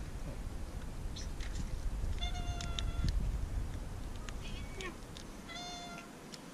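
A cat meowing twice, each call a level, steady note lasting about half a second to a second, with scattered light clicks in between and a low background rumble.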